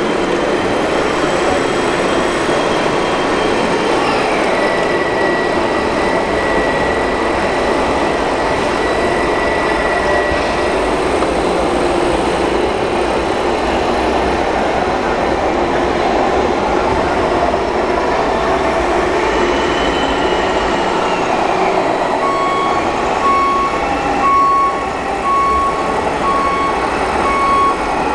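Radio-controlled hydraulic excavator working, a steady mechanical hum with a whine that slides in pitch as the hydraulics take load. From about two-thirds of the way in, a short electronic beep repeats roughly once a second, like a machine's warning beeper.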